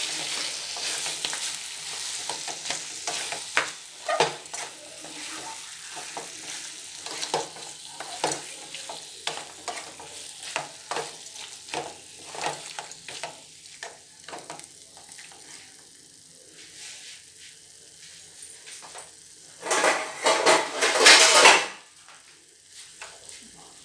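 Wooden spatula stirring and scraping masala-coated raw chicken around a steel kadai over a light sizzle, in irregular scrapes and knocks that thin out midway. Near the end comes a louder burst of quick scraping lasting about two seconds.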